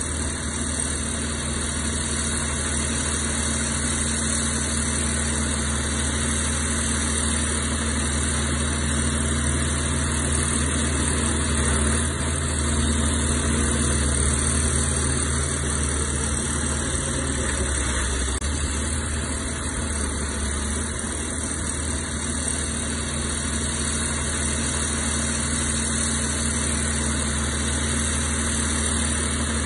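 Heavy diesel earthmoving machinery running steadily, its engine holding an even, unchanging note.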